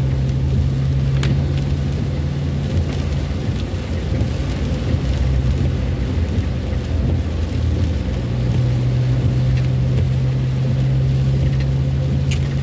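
Ambulance cabin noise while driving in rain: a steady low drone of the engine and tyres, with rain falling on the body and windows. Two sharp clicks, one about a second in and one near the end.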